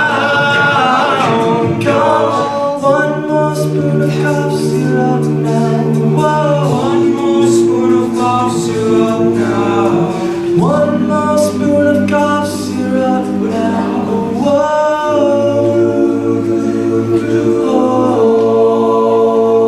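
Men's a cappella group singing sustained chords with a bass line underneath and no clear words, the harmony shifting to a new chord every few seconds.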